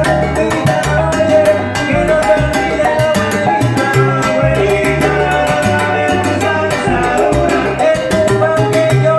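Live salsa band playing, with a steady percussion pattern and a walking bass line.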